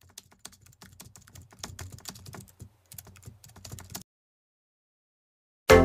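Rapid, irregular light clicking for about four seconds, then a short silence. Music starts abruptly just before the end.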